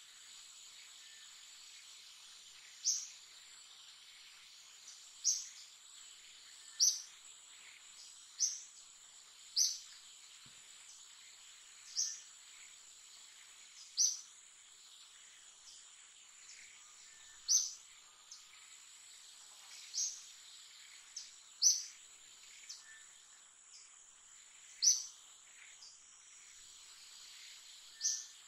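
Insects in the forest keep up a steady high buzz, and a short, loud, high chirp sounds over it about every two seconds, at an irregular pace.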